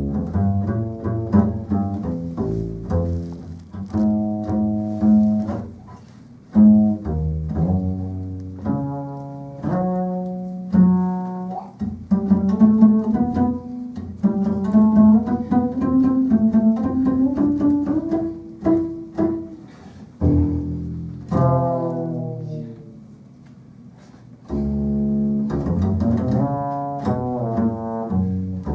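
Double bass played pizzicato, a melodic run of plucked notes with some gliding upward in pitch, growing quieter for a few seconds near the end before picking up again.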